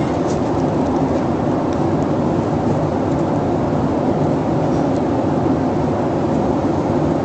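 Steady, low rushing noise of an airliner cabin in flight.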